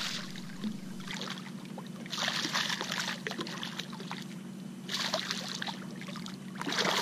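Hooked bluefish thrashing at the surface beside the boat, splashing in several short bursts over a steady low hum.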